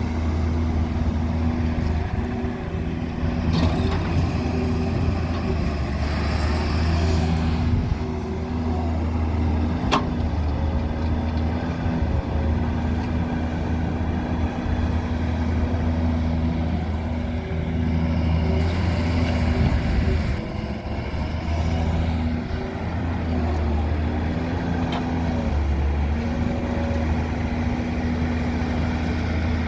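Heavy diesel engine of an excavator loading mud into a dumper truck, running steadily with its pitch and load shifting as it works. There is a sharp knock about ten seconds in.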